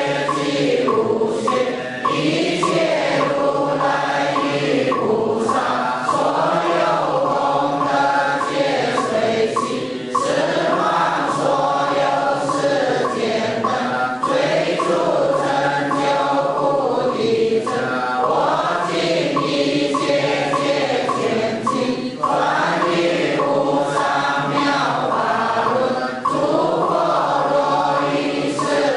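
Buddhist liturgical chanting by a group of voices in unison, sung in long sustained phrases with brief pauses for breath every few seconds.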